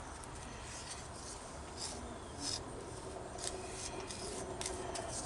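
Faint scraping and rubbing as wet cement is worked and packed into a wall repair, with a few short scrapes scattered through.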